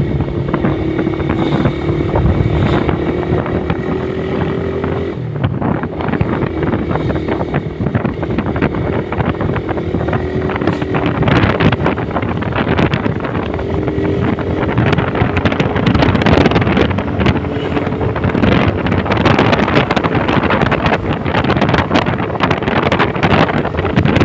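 Motorcycle engine running on the move, its pitch slowly climbing as it speeds up, with a break like a gear change about five seconds in. Wind noise on the microphone grows louder in the second half.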